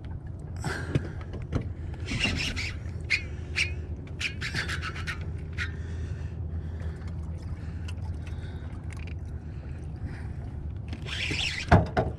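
Handling noise from hands working a baitcasting rod and reel while reeling in a hooked redfish: rubbing and scraping with many short clicks, over a steady low hum, and a louder scrape near the end.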